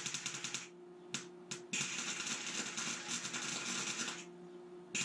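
Electric welding arc crackling as the differential's spider gears are welded together to lock the open diff: a burst that stops under a second in, two quick blips, then a longer run of about two and a half seconds.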